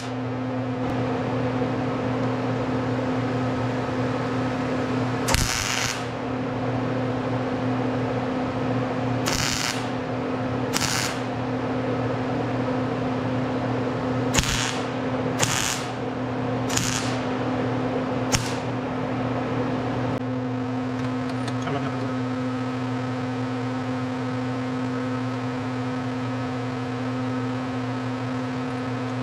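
Wire-feed (MIG) welder tack-welding steel: about seven short crackling bursts of arc, each around half a second, spread over the first twenty seconds. A steady electrical hum runs underneath throughout.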